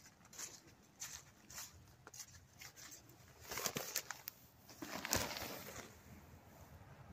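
Scattered rustles and soft knocks of mail being handled and pushed into a postbox slot, with a sharper knock about five seconds in.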